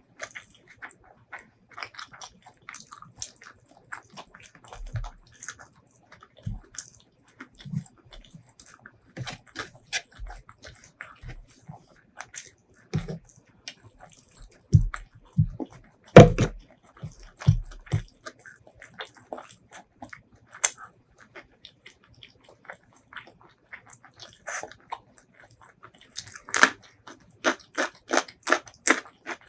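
Close-miked eating: wet chewing and lip smacks on spiced chicken, with louder knocks and soft thuds in the middle as the chicken leg is torn apart by hand on a wooden tray. Near the end, a bite into a fresh cucumber slice and a fast run of crisp crunches.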